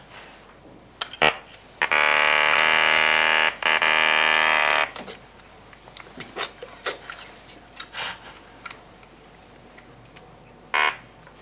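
Handheld electrolarynx (voice box) giving a loud, steady, flat-pitched buzz for about three seconds, with a short break in the middle. Scattered clicks and knocks from the device being handled come before and after the buzz.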